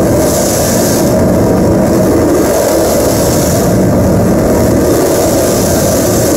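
Live harsh-noise performance: a loud, steady wall of heavily distorted noise, overloading the phone recording.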